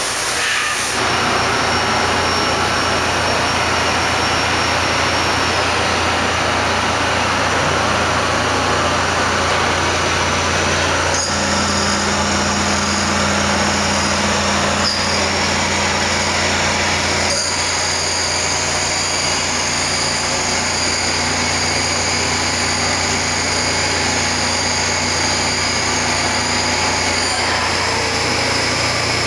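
Haas TM-1 CNC vertical mill running under power, a steady mechanical whir and hum. High whines shift pitch several times, and a lower tone comes and goes, as the machine changes speed.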